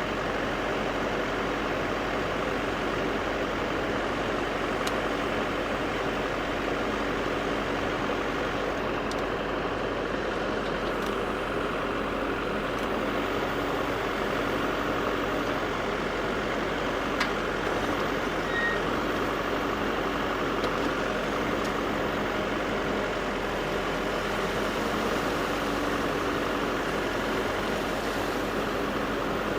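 Backhoe's diesel engine running steadily without let-up.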